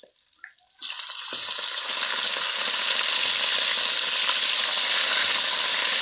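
Marinated beef slices and their soy-sauce marinade poured into hot oil in a steel wok, sizzling loudly. The sizzle starts suddenly about a second in, swells over the next second and then holds steady.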